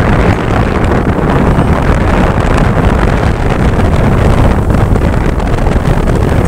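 Wind buffeting a phone's microphone outdoors: a loud, steady, rough rumble of noise, strongest in the low end.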